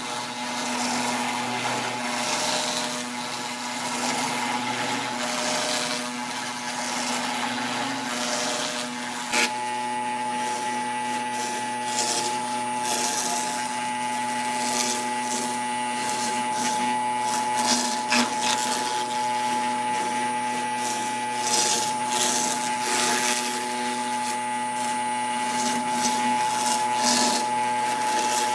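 CNC router spindle running with a steady whine while the bit cuts, with a rough hiss over it. About nine seconds in there is a sharp click, and after it a higher whine comes in stronger and holds steady.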